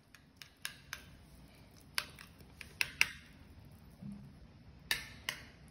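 Metal spoon clinking against bowls: several sharp clinks at uneven intervals, the loudest about two and three seconds in.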